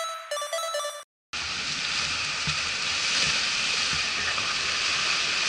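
A few notes of music end about a second in; after a brief drop to silence, a steady rush of sea surf breaking and washing on a sandy beach as people splash through the shallows.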